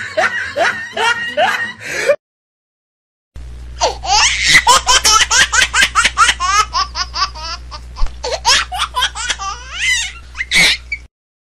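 Two separate bouts of laughter cut together: a pulsing laugh that stops abruptly about two seconds in, then, after a moment of dead silence, a longer, high-pitched fit of rapid laughing with a steady low hum beneath it, which cuts off shortly before the end.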